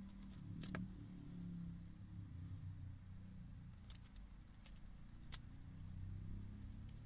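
Light plastic clicks and rustles of a pleated cabin air filter being handled in its plastic frame, in two small clusters: one near the start and one around four to five seconds in, the sharpest click near the end of that cluster. A faint low steady hum runs underneath.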